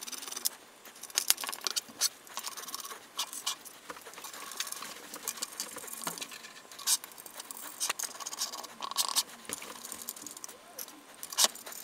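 Irregular light metallic clicks and clinks of small steel screws being picked from a pile and fitted by hand into the printer's metal frame plates, with a screwdriver tapping and turning in the screw heads near the end.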